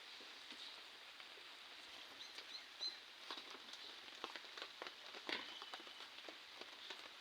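Faint outdoor ambience with scattered light clicks and taps, and a few short high chirps about two to three seconds in.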